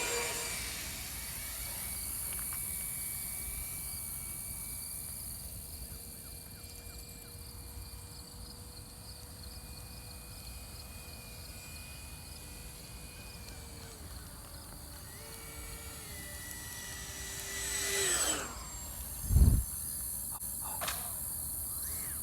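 Electric ducted fan of an RC F-18 jet whining steadily overhead, its pitch shifting with throttle, then falling sharply as it passes close about 18 seconds in. A low thump follows soon after, over a high insect chirring.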